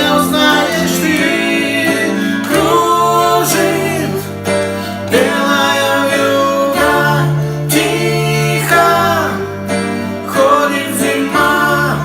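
A slow pop ballad being performed: a sung melody over a sustained instrumental accompaniment with a steady bass line.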